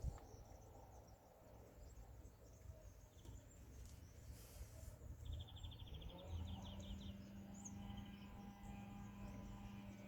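Faint outdoor ambience with small birds chirping, including a rapid chirping trill about five seconds in. A steady low hum comes in about a second later.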